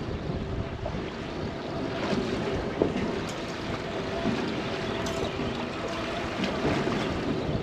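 Wind buffeting the microphone over the wash of water around a small boat at sea, with a faint steady hum underneath.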